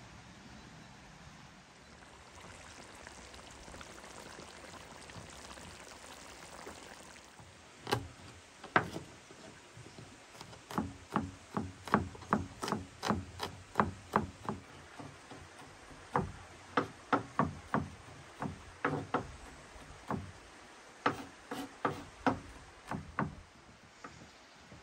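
Chef's knife chopping garlic cloves on a wooden cutting board: sharp knocks of the blade on the board in quick runs, several a second, with short pauses between runs. A steady faint hiss fills the first seven seconds or so.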